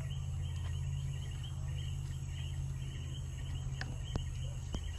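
Night insects, crickets, chirping in a steady pulsing chorus over a constant low rumble, with a few sharp cracks from the wood cooking fire in the second half.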